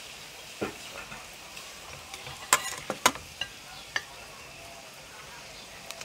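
Meat sizzling on a domed tabletop barbecue grill pan, a steady hiss, with a few sharp clicks of metal tongs and chopsticks against the pan, the two loudest about halfway through.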